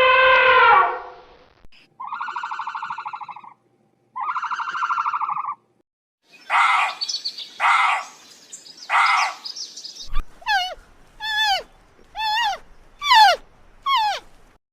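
A series of animal calls: two buzzy, rapidly pulsed calls, then three short harsh calls, then six quick chirps that each sweep downward in pitch.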